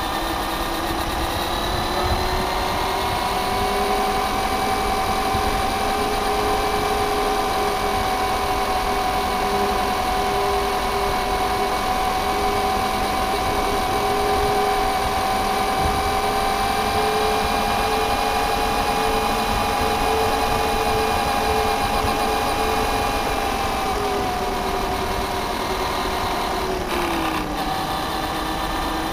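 Traxxas Stampede 4x4 electric RC truck's motor and drivetrain whining at speed, heard from a camera mounted on the truck, with the rumble of its tyres on the paving underneath. The whine rises a little about two seconds in, holds steady, then falls near the end as the truck slows, with a brief sharp dip just before the end.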